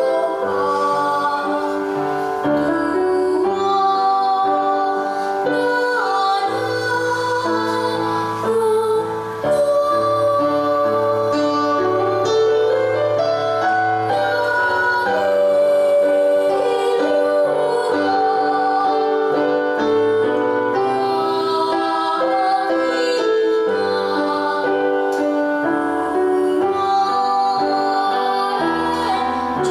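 A teenage girl singing a solo song, with sustained melodic notes over an instrumental backing that carries a steady bass line.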